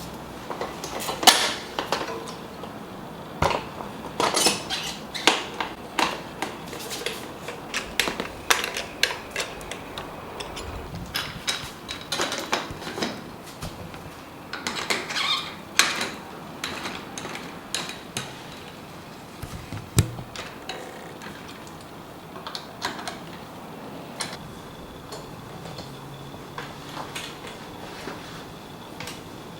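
Irregular metallic clicks, clinks and light knocks of tools and bike parts being handled while a mountain bike is assembled, busiest in the first half.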